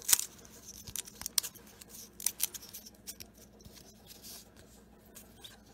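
Glossy baseball cards being thumbed and slid apart by hand from a stack, a string of irregular sharp clicks and snaps, the strongest just after the start. The cards' glossy surfaces stick together as they are separated.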